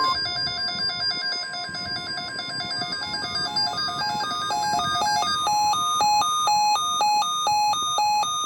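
NOAA Weather Radio's 1050 Hz warning alarm tone for an Emergency Alert System alert, one long steady tone. Over it, weather-alert receiver alarms beep in a rapid two-note warble. A second, different warble joins about three seconds in, and the first stops about two seconds later.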